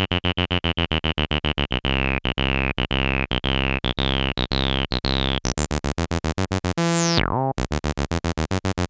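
Roland TB-303 Bass Line analog synthesizer playing a fast sequenced bass pattern of short notes, about eight a second, while its filter knobs are turned by hand so a ringing filter tone climbs in pitch. From about six seconds in the notes turn brighter, and a steep downward sweep comes about every two seconds.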